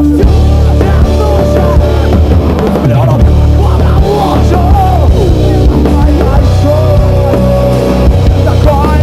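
Live heavy rock band playing loudly: drum kit and guitars with a singer's voice gliding over them.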